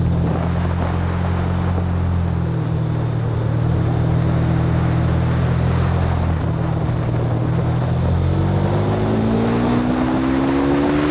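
Aprilia Tuono V4 motorcycle's V4 engine heard onboard, holding a steady note and then rising in pitch from about eight seconds in as the bike accelerates. Wind rushes over the microphone.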